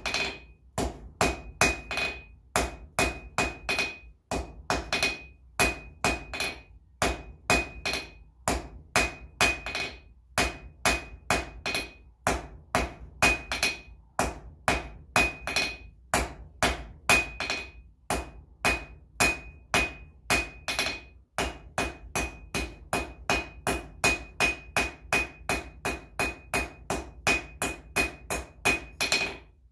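Blacksmith's hand hammer striking red-hot steel bar stock on an anvil, a steady run of about three blows a second, most with a high ring, broken by a few brief pauses. The smith is drawing out a taper on the end of the hook, then squaring and rounding it.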